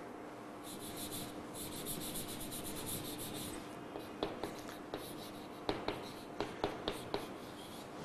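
Chalk scratching on a chalkboard as words are written. Quick scratchy strokes run through the first few seconds, then separate sharp taps and short strokes as the chalk meets the board.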